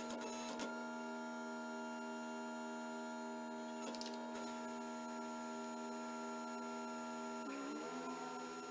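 Electric motor and hydraulic pump of a homemade hydraulic tube bender (salvaged from an old sausage machine) running under load while the ram bends thick-walled steel roll-cage tube: a steady hum that rises in pitch about seven and a half seconds in as the bend finishes and the load comes off. A couple of faint clicks are heard.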